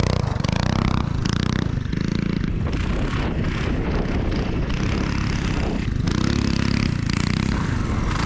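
Coleman CT200U minibike's single-cylinder four-stroke engine running under load, its pitch rising and falling several times as the throttle is opened and eased off.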